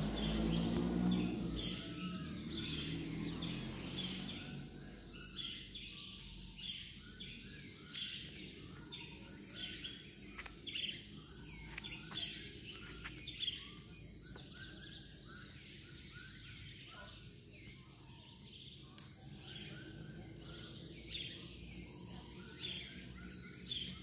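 Many birds chirping and calling at once from forest trees, a dense overlapping chorus of short high calls. A low hum is heard in the first two seconds and fades away.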